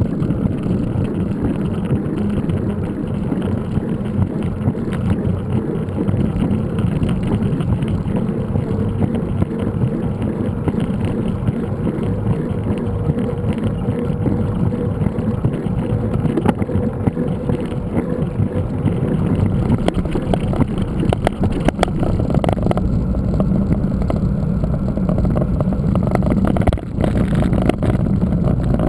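Steady low rumble of wind buffeting and riding noise on a GoPro action camera during a mountain-bike ride, with scattered short knocks and rattles from bumps on the trail.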